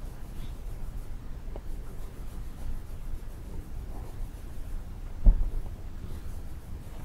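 Soft rubbing and scraping from hand work, with one low thump a little over five seconds in.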